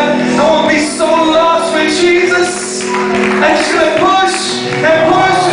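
Live worship music: electric guitars playing with a voice singing over them.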